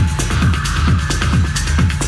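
Techno played loud over a club sound system: a steady four-on-the-floor kick drum at just over two beats a second, with ticking hi-hats and a held synth tone above.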